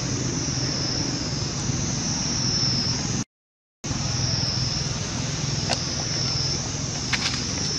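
Steady outdoor background noise: a low rumble with a high, steady drone on top, and a few faint clicks near the end. It cuts out completely for about half a second a little over three seconds in.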